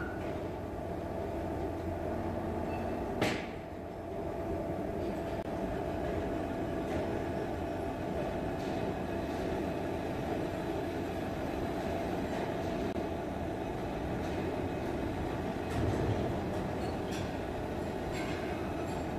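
Steady drone of heavy machinery in a steel-pipe lathe shop, with one sharp metallic clank about three seconds in and a few lighter knocks and clicks later.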